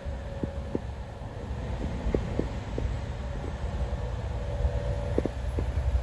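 Road noise heard inside a moving car's cabin: a steady low rumble from the tyres and engine, with a faint steady hum and scattered light taps.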